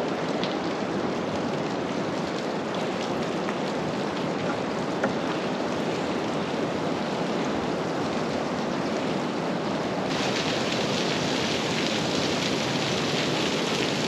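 Steady rush of running water, growing a little brighter about ten seconds in.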